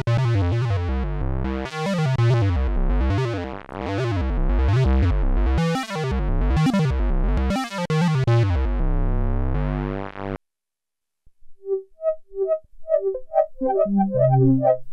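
Sequential Prophet-10 analog polysynth played direct from its output: a thick factory patch whose brightness swells and falls about once a second for about ten seconds, then stops. After a second's pause a different preset starts with short plucked notes in a quick pattern, a bass part joining near the end.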